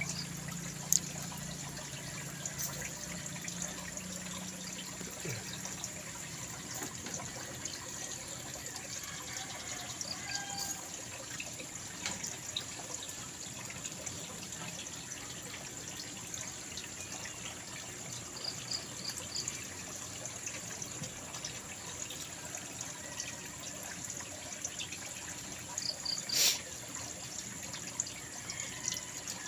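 Steady trickling water, the nutrient solution flowing through a hydroponic pipe system. There is a sharp click about a second in and a brief louder knock near the end.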